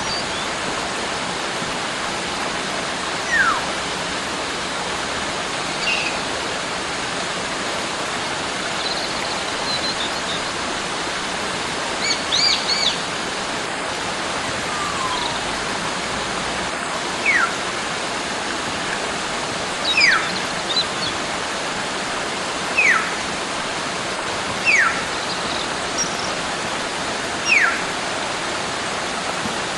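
Wild forest bird whistling over the steady rush of a stream or waterfall. About six short whistles slide downward in pitch, several of them in the second half, with a few brief high chirps in between.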